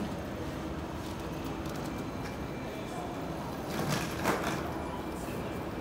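Steady background noise of a large airport terminal hall as travellers walk past, with a short, louder sound about four seconds in.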